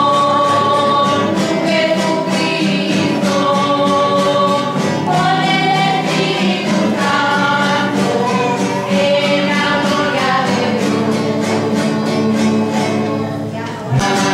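A church choir and congregation singing a hymn, with strummed acoustic guitar accompaniment.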